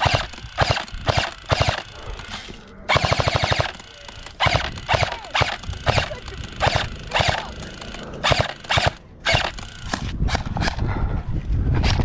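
Airsoft guns firing, with scattered single shots, short bursts, and a rapid full-auto burst about three seconds in. A low rumble comes in near the end.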